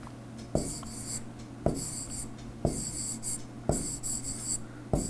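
Stylus writing on a tablet screen: about once a second a sharp tap of the pen tip, followed by a short high scratching hiss as the stroke is drawn, five strokes in all.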